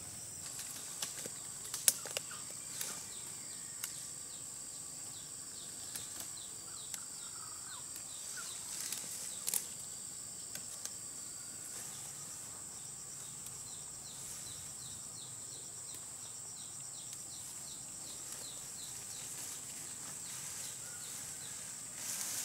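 A steady, high-pitched buzz of insects in the vegetation, with a run of small repeated chirps in the middle, broken by a few sharp snaps and rustles of plant stems being handled, the loudest about two seconds in and another near ten seconds.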